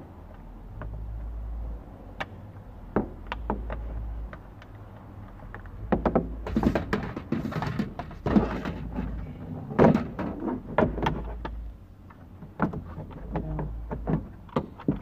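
Plastic interior trim panel of a Mitsubishi Lancer being handled and pressed into its clips on the A-pillar: scattered sharp clicks and knocks, with a busier stretch of plastic rattling and rubbing in the middle. A low rumble comes and goes underneath.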